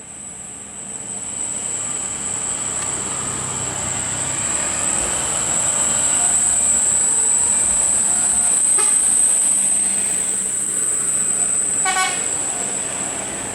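A large road vehicle passes close by, its engine and tyre noise swelling to a peak around the middle and fading again. A steady high-pitched whine runs over it. A brief horn toot sounds near the end.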